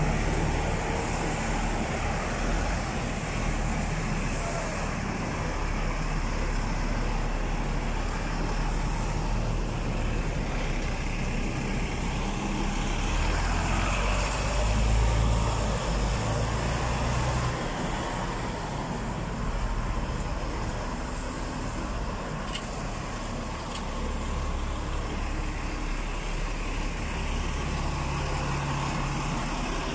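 City street traffic: buses and cars running on the road alongside, a steady hum of engines and road noise that grows a little louder about halfway through.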